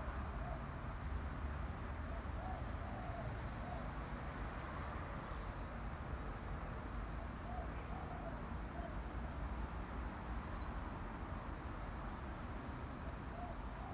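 A young fantail's squeaky call: short, high, falling chirps repeated every two to three seconds, with lower arched calls in twos and threes, over a steady low rumble.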